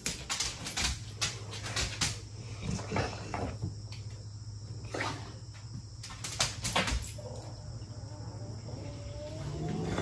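A running LG dishwasher hums steadily, its motor whine rising in pitch near the end and then holding. Scattered clicks and taps sound over it.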